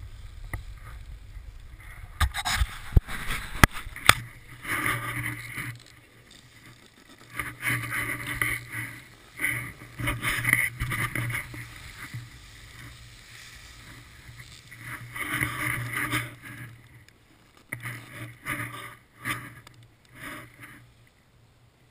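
Skis scraping and hissing over hard-packed snow in a run of turns, each turn a rasping burst of a second or two with quieter glides between. A few sharp clicks and knocks come about two to four seconds in.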